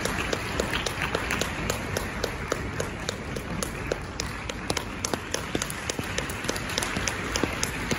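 Audience applauding, a dense patter of many hands clapping that eases a little after the first few seconds.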